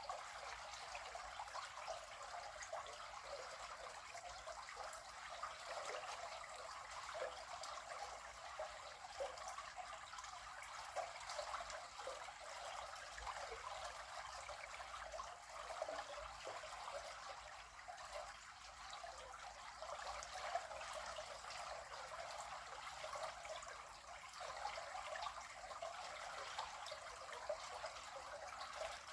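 River water flowing: a steady babbling and trickling rush with many small splashes.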